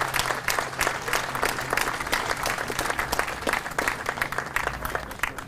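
Crowd applauding with many hands clapping, dying away near the end.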